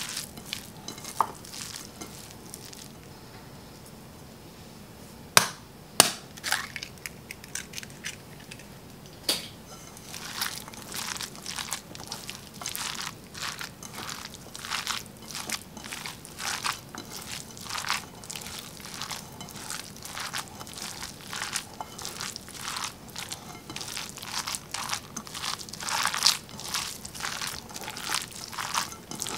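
Hands squishing and kneading a moist veggie burger mix in a bowl: irregular wet crackling and squishing, sparse at first with a couple of sharp knocks about five and six seconds in, then steady and dense from about ten seconds on.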